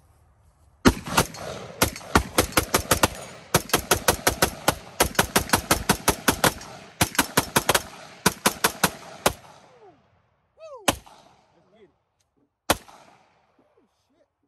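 Gunshots from a scoped AR-style rifle and a pistol: a long run of quick shots, several a second with a few short pauses, stopping about nine seconds in. Two single shots follow a couple of seconds apart.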